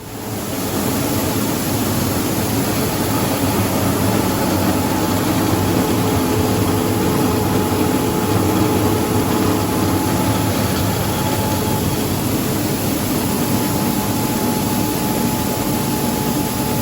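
Rice husking machine (husker separating husk from brown rice) running: a loud, steady mechanical rumble and rattle with a faint steady whine, coming up within the first second and then holding even.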